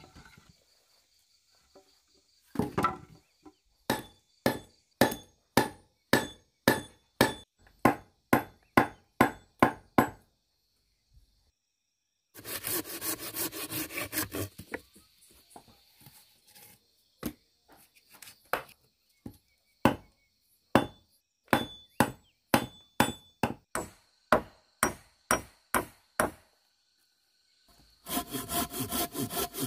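Machete chopping wood: runs of sharp chops, about three a second. A rapid rasping like sawing breaks in twice, once about halfway through and again near the end.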